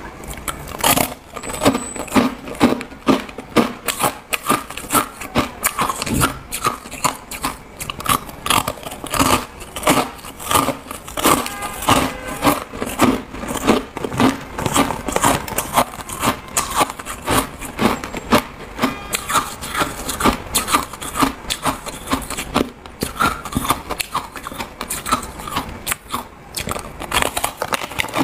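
Close-up crunching and chewing of chunks of frosty white ice: a dense run of sharp, brittle crunches, several a second.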